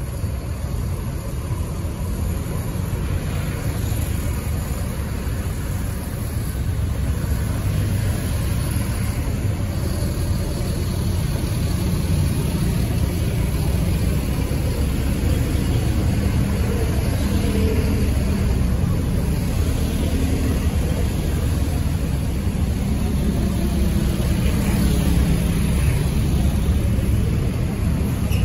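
Road traffic on a city street: vehicle engines running close by, a steady low rumble that grows a little louder after the first several seconds.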